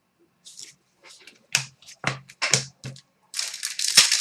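Trading cards being handled on a table: a few sharp taps and clicks, then a dense crinkling rustle starting about three seconds in.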